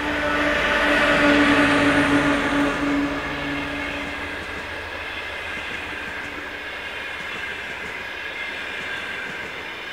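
TEP70 diesel locomotive passing close by under power, its engine drone loudest in the first few seconds and fading out by about four seconds in as it draws away. Then the steady rolling noise of its passenger coaches' wheels on the rails.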